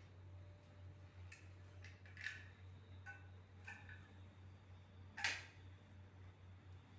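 A hand caulking gun clicking as its trigger is worked: a few faint ticks, then one sharper click about five seconds in, over a low steady hum.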